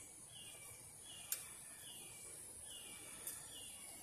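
Faint garden ambience: a short falling chirp repeating two or three times a second, over a steady high insect whine. Two sharp clicks, about a second in and again about three seconds in.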